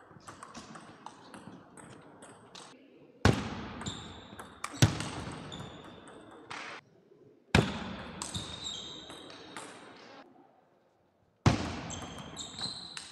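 Table tennis ball clicking off bats and bouncing on the table in rallies, with short high shoe squeaks on the wooden floor, echoing in a sports hall. The sound jumps abruptly three times, about 3, 7.5 and 11.5 seconds in.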